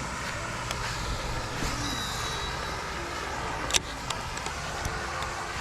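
Steady rumble of distant road traffic, with one sharp click a little past halfway and a few light ticks after it.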